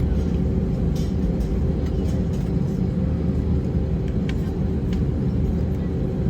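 Steady cabin noise inside an Airbus A320: a low engine and airframe rumble with a constant hum, and a few faint clicks.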